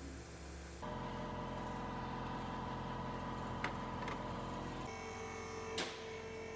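Car engine running steadily, its tone shifting abruptly about a second in and again near five seconds, with a few sharp clicks over it.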